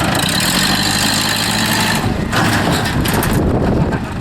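Farm tractor engine running under load while pulling on a chain, its note changing about two seconds in.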